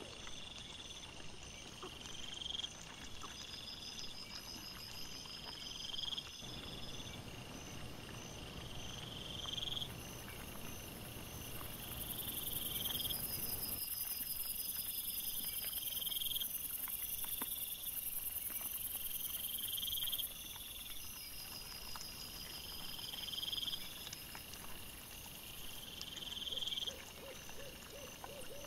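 Night insects chirping in a steady rhythm: a rising chirp about once a second, with faster pulsed trills higher up. A very high steady hiss joins in midway. A low rustling runs under it for several seconds.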